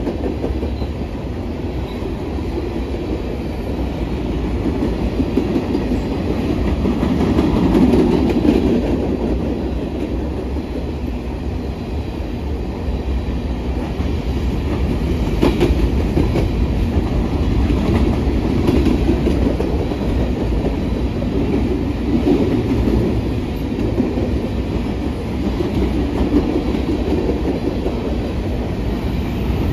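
Covered hopper cars of a long freight train rolling past, their steel wheels running on the rails in a steady noise that swells and eases every few seconds.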